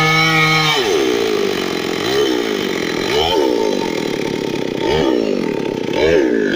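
Stihl MS 382 two-stroke chainsaw running at high revs. A little under a second in, the revs drop sharply, then rise and fall over and over, about once a second.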